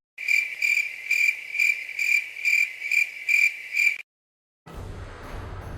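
Cricket-chirping sound effect: a high, steady chirp that pulses about twice a second for about four seconds, starting and stopping abruptly. It is the stock comic cue for an awkward silence.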